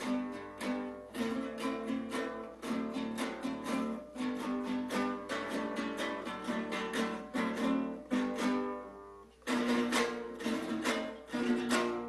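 Cinco larense, a six-string Venezuelan folk guitar, strummed solo in a steady rhythmic pattern; the playing dips briefly about nine seconds in, then carries on.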